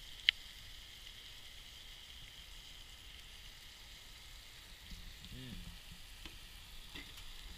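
Mushrooms, peppers and onions sizzling in a cast iron pan on a grill, a steady frying hiss, with a single sharp click about a third of a second in.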